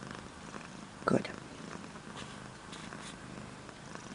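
A black domestic cat purring steadily, filmed up close, with one brief louder sound about a second in.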